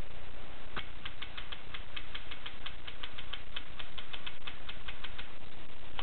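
Groma Gromina portable manual typewriter being typed on: a steady run of key and typebar strikes, about six a second, starting about a second in and stopping shortly before the end.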